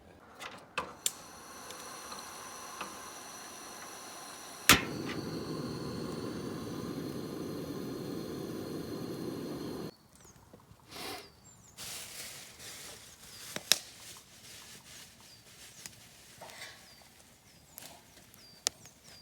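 A steady hiss with faint steady whistling tones, which jumps louder at a sharp click about five seconds in and stops abruptly at about ten seconds. It is followed by scattered crackles and pops from a wood campfire.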